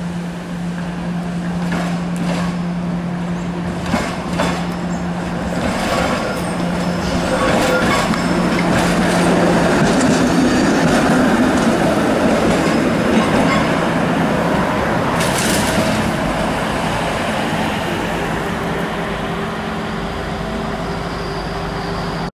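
SEPTA Kawasaki light-rail streetcar running on street track as it approaches and passes close by. The running noise grows to its loudest about ten to fourteen seconds in, with separate clicks from the wheels on the rails earlier and a short hiss about fifteen seconds in.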